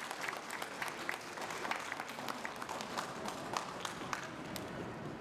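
Audience applauding with scattered hand claps that thin out near the end.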